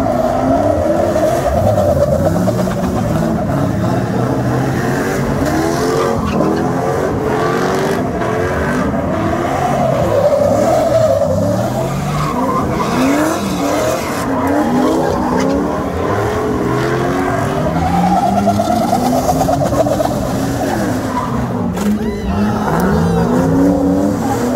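Cars doing burnouts and donuts: engines revving up and down over and over, with tyres squealing and skidding on the asphalt.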